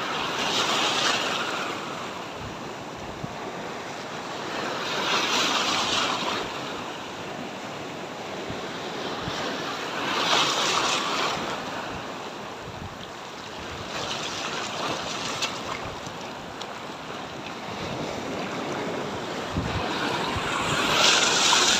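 Sea waves washing in against a rock breakwater, surging about every five seconds, with wind buffeting the microphone.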